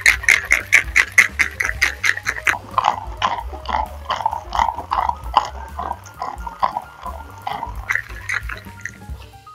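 Crushed ice and liquid rattling in a metal cocktail shaker being shaken, about five sharp strokes a second. About two and a half seconds in, the strokes turn slower and duller, and the shaking stops shortly before the end.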